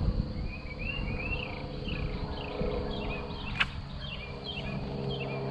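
A quick run of short, high chirps from a small animal, repeating several times a second over a steady low outdoor rumble, with one sharp click about three and a half seconds in.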